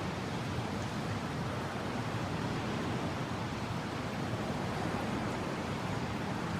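Steady mountain wind blowing, an even rushing noise with no gusts or whistling.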